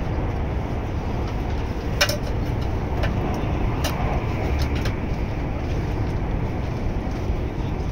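Steady rumble of a Fuxing high-speed train heard from inside the passenger cabin while running, with a few sharp clicks about two and four seconds in.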